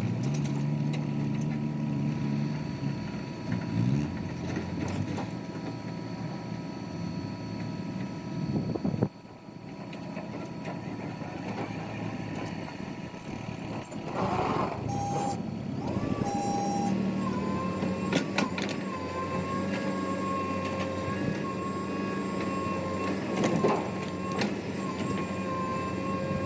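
Diesel engines of heavy construction and farm machinery running steadily, with two short beeps about midway and a few sharp knocks later on.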